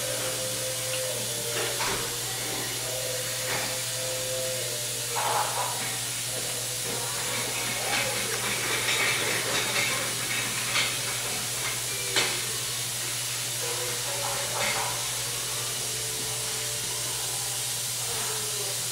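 Steady hiss with a low hum, broken by a few short clicks of metal surgical instruments as a gingival graft is sutured.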